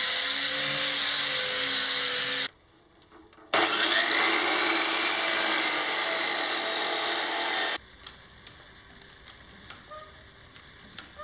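Angle grinder with a cut-off disc cutting steel tube: a loud steady whine and grinding hiss that stops for about a second, then spins up again for a second cut and stops about eight seconds in. After that come a few light clicks and knocks from a manual hydraulic pipe bender being worked.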